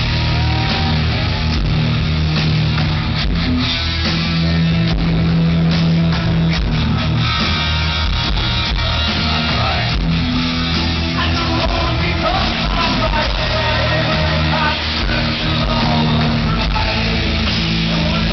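Heavy metal band playing live through a concert PA, with loud electric guitars, bass and drums. It is heard from far back in the crowd.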